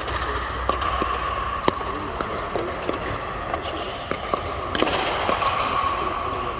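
Pickleball paddles striking a hard plastic pickleball during a rally: sharp pops at irregular intervals, sometimes two or three a second, over a steady high hum.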